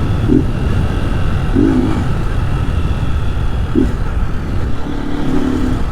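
Honda Start 190 single-cylinder motorcycle engine running under way without an air filter, a steady low pulsing exhaust and intake note.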